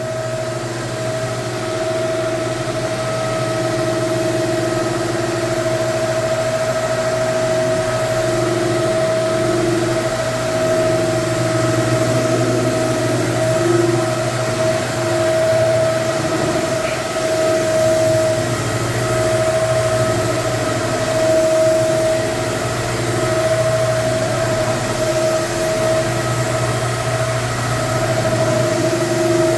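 Hardwood floor cleaning and extraction machine running steadily with a continuous motor drone and whine.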